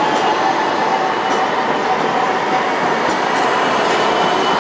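DÜWAG low-floor trams running past close by, one following the other, with a steady noise of wheels on the rails and a faint held tone over it.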